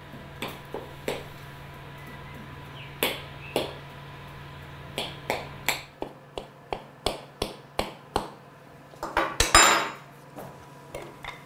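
Fork tines jabbing holes into yeast dough on a metal baking sheet, each jab ending in a sharp clink of metal on the tray, about a dozen in all and quickening to some three a second midway; a short clatter near the end.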